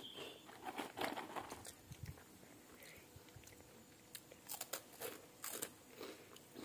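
Crunchy cheese-flavoured corn puff snack being bitten and chewed: a run of short, crisp crunches, loudest about a second in and again near the end.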